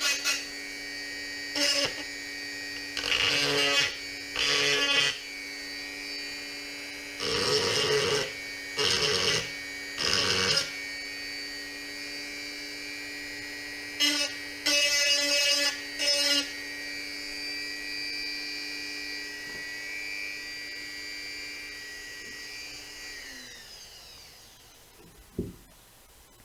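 Small electric rotary tool running steadily at high speed, with three louder bursts of grinding as it is pressed against the plastic body shell. It switches off near the end and spins down with a falling whine, followed by a single knock.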